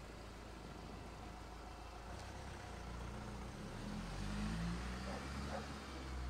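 Low, steady traffic rumble, with a motor vehicle's engine building up and growing a little louder from about halfway through.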